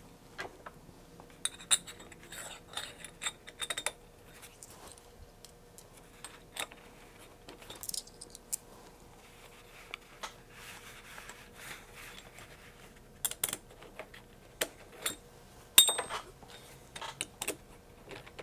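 Small metal kit hardware, standoffs and screws, clicking and clinking as it is handled and fitted onto an aluminium robot chassis. The light metallic taps come scattered and irregular, with a brief ringing on some of them.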